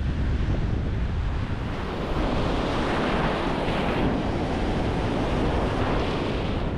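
Wind buffeting an action camera's microphone in a low rumble. After about two seconds the hiss of breaking surf and white water joins in.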